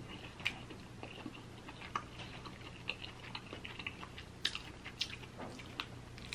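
Close-up eating sounds: chewing with scattered small, irregular clicks and crackles of crab shell being handled and snapped by hand.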